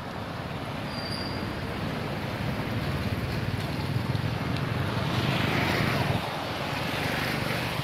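A road vehicle passing, a steady rushing noise that builds over about six seconds and then eases off slightly.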